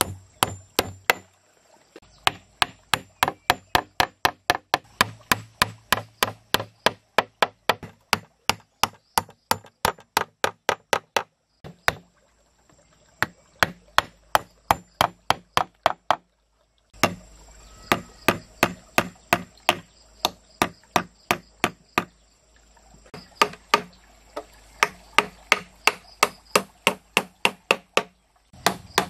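Steady, rapid blows of a hand tool striking wood, about three a second, in runs broken by two or three brief dead-silent gaps.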